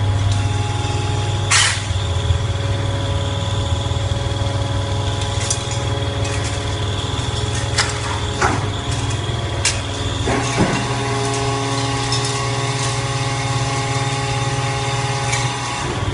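Copper scrap baler running, its motor holding a steady hum, with several sharp metallic knocks from the machine. The hum shifts slightly about ten and a half seconds in.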